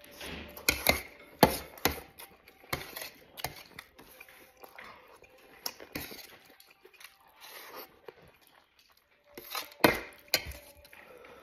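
Metal spoon clinking and scraping against an enamel plate as rice and food are scooped up, with chewing between the strikes. The sharpest clinks come about a second in and again near the end.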